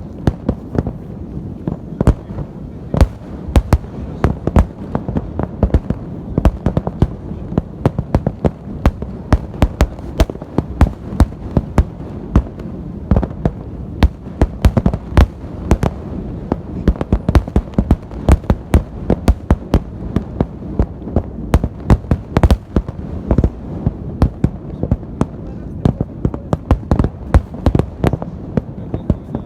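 Festive fireworks salute going off: a rapid, irregular string of sharp bangs, many per second, over a continuous low rumble of bursts and their echoes.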